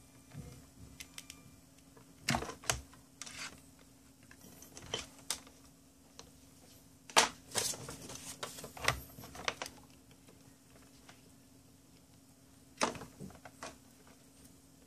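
Clicks and knocks of USB plugs being pushed into and pulled out of a small USB hub, with cables shifting on the desk, in uneven clusters. A steady low hum runs underneath.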